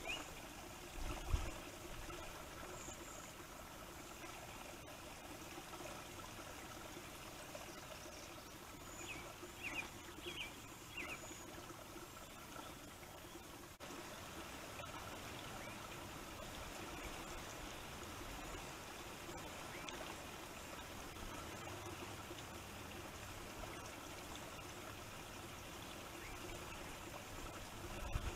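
Faint, steady wetland ambience: an even hiss with a trickling, running-water quality. A few short high chirps come about a second in and again around ten seconds in, and low rumbles of wind hit the microphone near the start and end.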